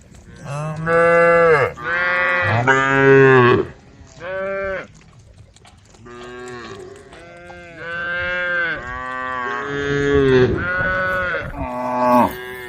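A herd of cows mooing, calling to one another: about a dozen loud moos in quick succession, some overlapping. The calls range from deep, low moos to higher-pitched ones.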